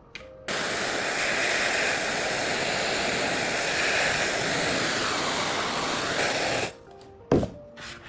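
A loud, steady hiss of blowing or spraying air switches on about half a second in, runs evenly for about six seconds and cuts off abruptly, followed by a single sharp click.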